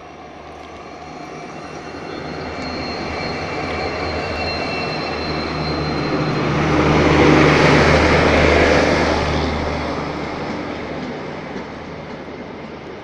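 Diesel locomotive hauling a passenger train passing close by on the next track: its engine's low hum grows louder, peaks about two-thirds of the way through as the locomotive goes past, then gives way to the rumble of the coaches' wheels.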